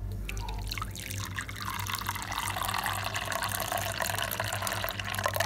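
Coconut milk poured in a thin, steady stream into a cut-glass bowl, splashing and frothing as the bowl fills. The pour starts about half a second in.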